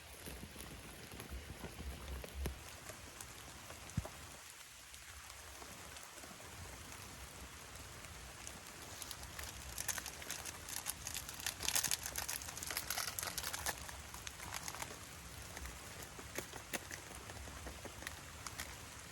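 Rain falling, a haze of drop hits that grows thickest and loudest about halfway through, with one sharper tap about four seconds in.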